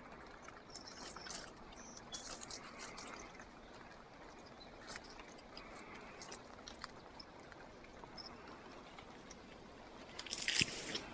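Dry twigs and leaves crackling and rustling in irregular small bursts, with a louder crunch about ten and a half seconds in.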